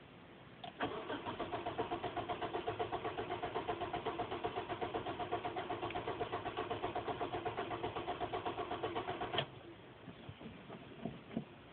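Car engine being cranked by its starter motor for about eight and a half seconds: an even, rapid chugging of about four to five compression strokes a second, without catching, then cut off abruptly. The engine will not start after sitting overnight. A few faint clicks follow near the end.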